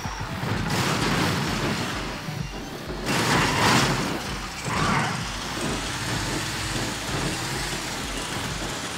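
A motor vehicle's engine running low and steady, with loud bursts of rushing hiss about a second in, around three to four seconds, and near five seconds.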